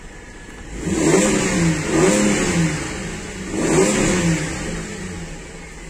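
Chevrolet Lumina car engine running and revved up twice, its pitch rising and falling each time. It runs again after a faulty crankshaft position sensor that stopped it starting was replaced.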